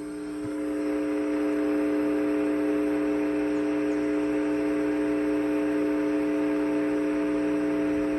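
AM car radio tuned to a station carrying dead air: a steady hum of several constant tones over static hiss, the hiss growing louder about a second in.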